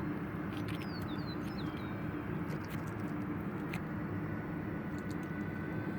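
Electric ducted fans of an RC Airbus A320 model jet running steadily in flight, a steady whine over a broad rushing noise. A bird chirps briefly about a second in.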